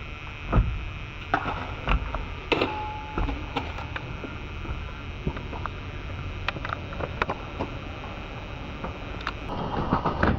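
Footsteps and light knocks of a skater walking up concrete steps with a skateboard in hand, heard over the camcorder microphone's steady low rumble and hiss. A brief single beep sounds about three seconds in, and the rumble grows louder near the end.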